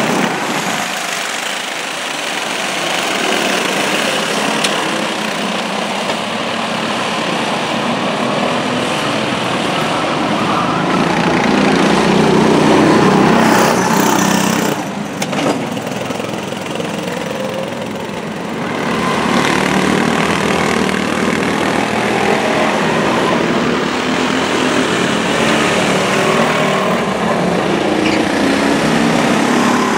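Several go-kart engines running as the karts lap the track, their pitch rising and falling as they accelerate and brake through the corners, the sound swelling as karts pass close and fading as they move away.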